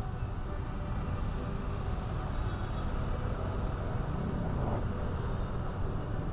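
Motorcycle engine running steadily while riding, with road and wind noise on the microphone.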